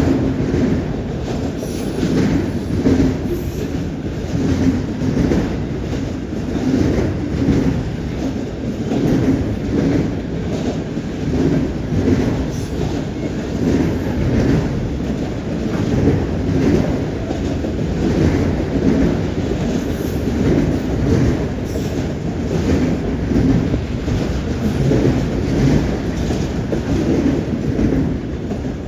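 Freight train cars rolling past with a steady low rumble, the wheel sets clacking in a regular rhythm about once a second.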